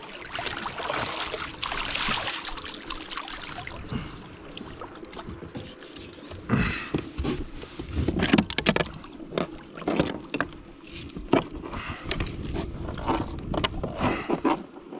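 Water splashing at the side of a kayak as a king mackerel is handled at the surface, then a run of sharp knocks and clatters as the fish is lifted out by the tail and bumps against the kayak and gear.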